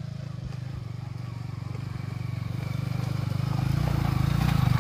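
Yamaha R15's single-cylinder engine running at a steady low pitch as the motorcycle rides slowly over a rough dirt track, growing louder as it comes close, with a little light clatter near the end.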